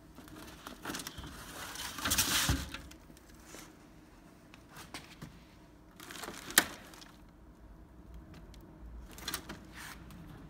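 A cardboard box and the loose metal aircraft panels inside it being handled and shifted: scraping and rustling about two seconds in, a sharp click about six and a half seconds in, the loudest sound, and a few small knocks near the end.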